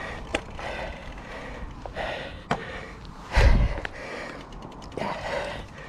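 A cyclist breathing hard and gasping after a steep climb, with a few sharp clicks and a brief loud low thump about three and a half seconds in.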